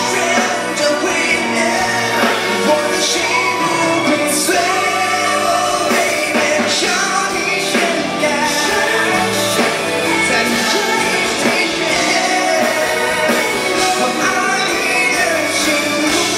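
A male singer sings into a microphone over a live pop-rock band with drums, the sound of a concert heard through a venue's PA.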